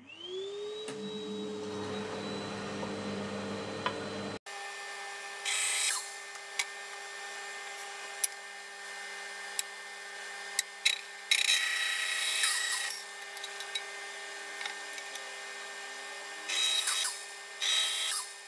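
Bandsaw motor starting up, its whine rising to a steady pitch within the first second, then running steadily. Small blocks of wood are fed through the blade in four cuts, each a louder rasp over the running saw.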